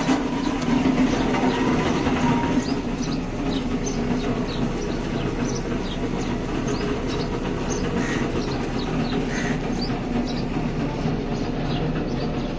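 A steady low mechanical rumble, like a running engine, with many short high chirps sounding over it.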